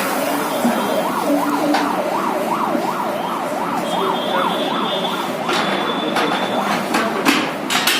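A siren sweeping rapidly up and down, about three times a second, for about four seconds before it fades, over steady background noise. A few sharp knocks follow near the end.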